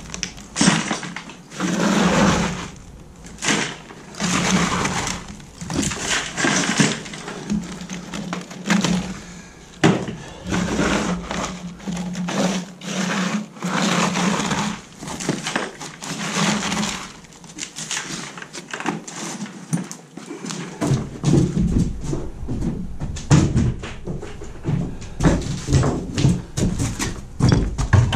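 SDS rotary hammer chipping concrete, run in repeated bursts of one to two seconds with short pauses between. Past the middle it gives way to a denser, lower rattling.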